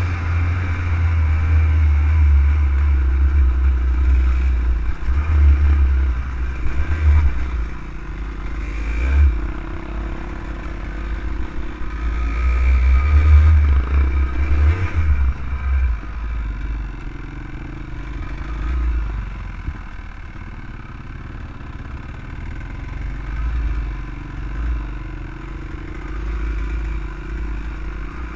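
Off-road vehicle's engine running while driving a rough dirt trail, revving up and easing off, louder through the first half and lower after about the midpoint.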